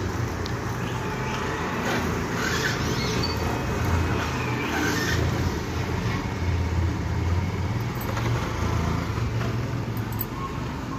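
Motorcycle engine idling with a steady low rumble, over general street traffic noise.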